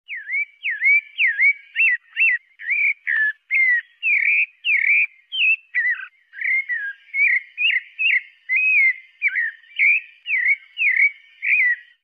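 Sabiá-parda, a Brazilian thrush, singing: a long run of short whistled notes, about two a second, each dipping and then rising in pitch.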